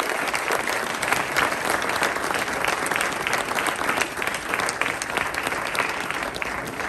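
Audience applauding, many hands clapping, the clapping thinning a little near the end.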